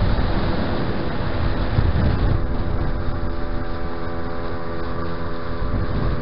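Tohatsu outboard motor running steadily at planing speed, pushing an inflatable boat through the water, with water rushing past the hull and wind buffeting the microphone.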